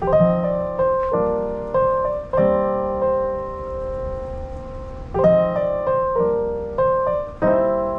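Slow solo piano music played over bookshelf speakers driven by a Fosi amplifier: chords and single notes struck every second or so and left to ring. The reviewer judges this amplifier as sounding good but with some "fog".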